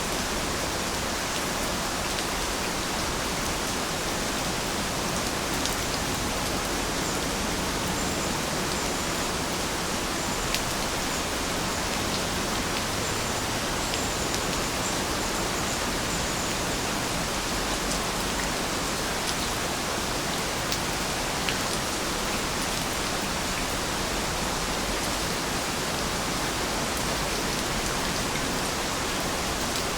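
Steady rainfall: an even hiss of rain with occasional sharper drop ticks.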